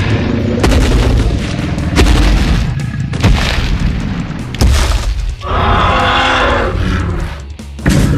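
Edited-in battle sound effects over background music: a string of deep booms and heavy impacts, with a drawn-out pitched cry about five and a half seconds in.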